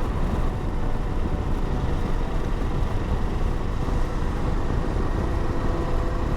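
Motorcycle engine running at a steady cruise with wind rushing past, heard through a microphone inside the rider's helmet.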